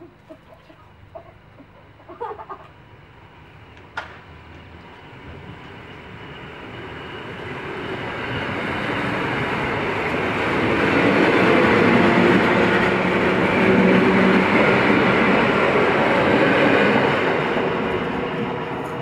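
An EN57 electric multiple unit passing close by: its running noise builds over several seconds, stays loud for several seconds as the cars go past, then begins to fade. A couple of sharp clicks come in the first few seconds.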